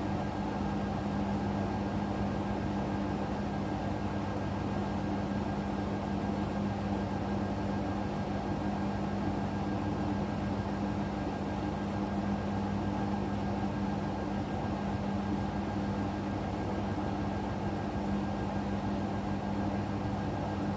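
Hoover washing machine running in suds lock during its final spin, held back by too much suds in the drum. It gives a steady hum that neither rises nor falls.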